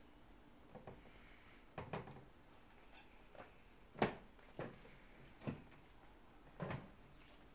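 Scattered light knocks and bumps on a tiled floor from a mop being pushed about among metal chair legs while a kitten chases it: about six short knocks, the loudest one about four seconds in.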